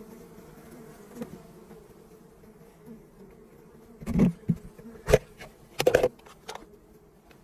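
Honeybees buzzing in a steady hum around a wild hive. Several loud knocks or thumps come in a cluster about four to six and a half seconds in.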